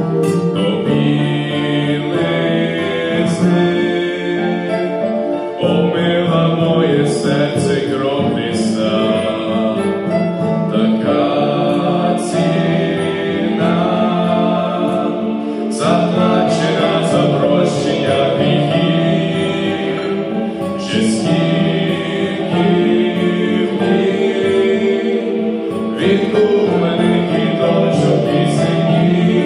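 Male vocal quartet singing a hymn in harmony, amplified through handheld microphones.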